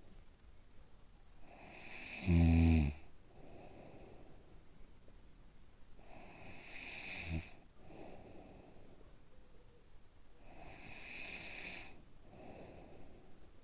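A sleeper snoring in slow, even breaths, one about every four and a half seconds. The first in-breath is a loud, low rattling snore; the next two are softer and airier, one ending in a short rattle. Quieter out-breaths fall between them.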